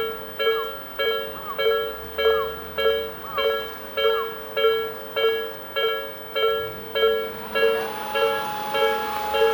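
Japanese railway level-crossing warning bell ringing in a steady, evenly spaced 'kan-kan' of a little under two strikes a second, each strike fading before the next. About three quarters of the way in, a steady higher tone joins in under the strikes and the background grows louder.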